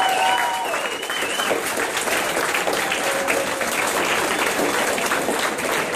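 Crowd applauding steadily, with a few raised voices over the clapping in the first second or so.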